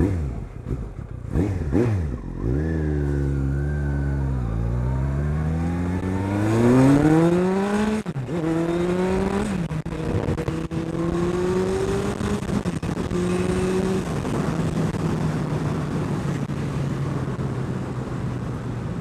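Motorcycle engine revved in a few quick blips, then accelerating away, its pitch climbing through the gears with shifts about eight and nine and a half seconds in, before settling into a steady cruise.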